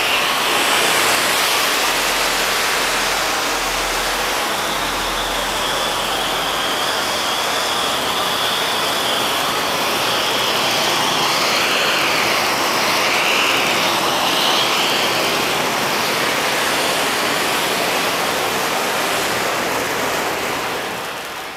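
Three stage pyro fountain cartridges on swinging pyro machines, fired together and burning at once: a loud, steady rushing hiss of spraying sparks that starts suddenly and eases off just at the end.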